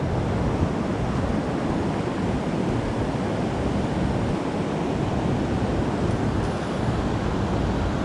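Steady rushing of a river and its waterfall, an even noise that does not change.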